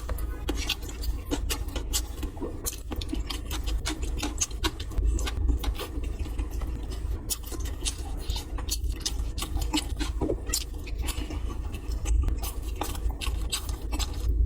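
Close-miked eating of steamed buns: many irregular wet mouth clicks and smacks from chewing, over a low steady rumble.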